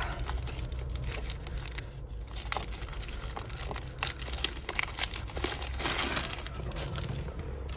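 Small plastic jewellery baggie crinkling, with scattered light clicks of tangled metal hoop earrings being handled and worked free.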